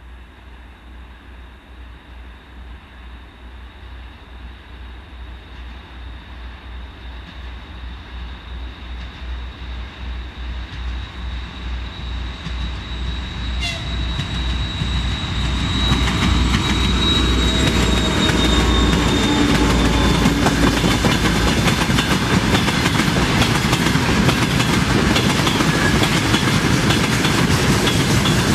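ST44 'Gagarin' diesel locomotives, two-stroke V12 engines, approaching with a low throbbing beat that grows steadily louder. At about 16 seconds in they pass close by, and the beat gives way to the loud rumbling clatter of loaded tank wagons rolling past on the rails.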